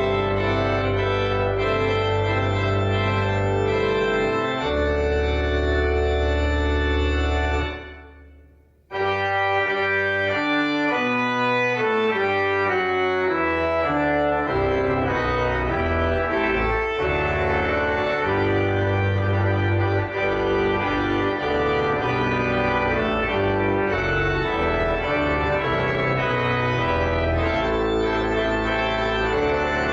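Church organ playing sustained chords over long bass notes. About eight seconds in the music fades out briefly, then starts again with a bass line stepping downward.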